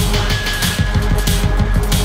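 Loud, aggressive background music with a fast, driving beat.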